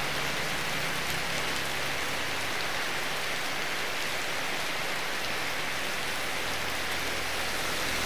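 Heavy rain pouring steadily, an even hiss of rain on the road and surroundings.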